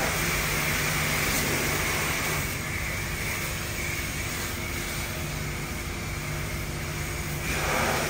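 Car wash equipment running steadily: a machine hum with a hiss of spray over it. The hiss drops away about two and a half seconds in and comes back near the end.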